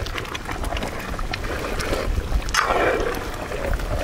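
A metal ladle stirring thick, simmering goat-leg paaya gravy in a large metal pot, giving a few light scrapes and clicks over a low wind rumble on the microphone.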